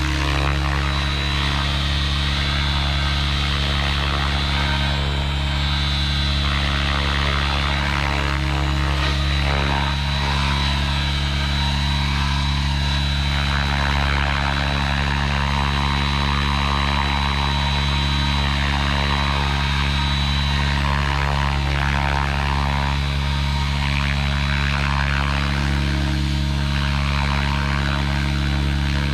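Align T-REX 700 radio-controlled helicopter hovering, its main rotor and drive giving a loud, steady hum with a thin high whine over it that fades about two-thirds of the way through.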